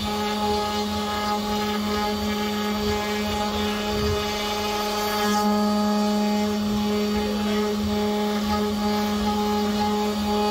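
CNC router spindle running with a steady whine as its bit carves a relief into a wooden panel, over an uneven low rumble from the cut.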